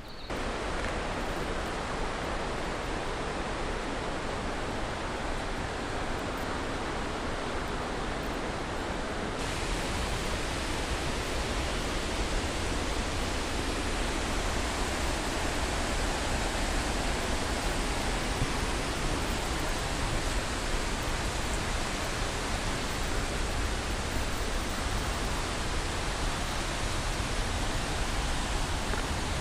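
Steady rush of a mountain torrent running over a boulder-filled stream bed. About nine seconds in it turns hissier and brighter.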